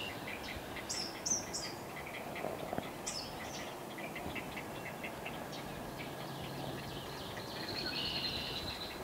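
Great blue heron nestlings' rapid ticking begging chatter at the nest as the parent feeds them, with a few short, high, thin bird calls about a second and three seconds in.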